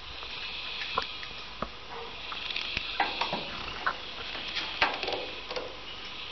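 Hands handling solar-panel cable ends and connectors: a scattering of small sharp clicks and rustles, over a steady faint high hiss.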